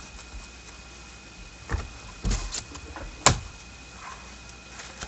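Handling noises as trading-card boxes and packs are moved about: a couple of soft knocks, then one sharp click about three seconds in.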